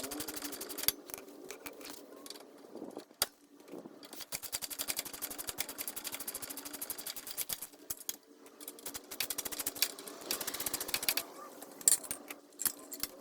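Socket ratchet clicking in quick runs while backing out the 13 mm bolts that hold a lower radiator support, with short pauses and a few sharper knocks of the tool against metal.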